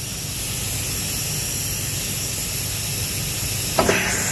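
Compressed air hissing steadily out of the HSD CNC router spindle nose while the pneumatic drawbar is released for an HSK63F tool holder, with a sharp metallic clack near the end as the tool is clamped.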